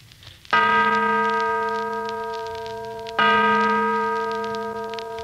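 Two strokes of a deep bell-like chime at the same pitch, about two and a half seconds apart, each ringing on and slowly dying away: a musical sting in a 1940s radio drama.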